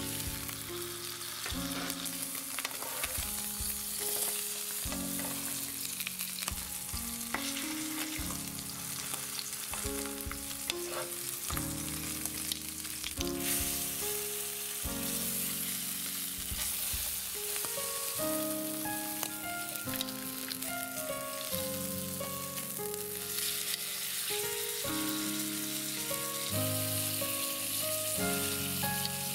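Bonito fillet sizzling steadily as it sears in hot oil in a nonstick frying pan. A background music track with a stepping melody plays along with it.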